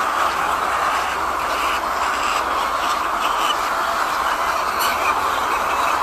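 Steady din of a large flock of caged white laying hens, many clucking and squawking at once.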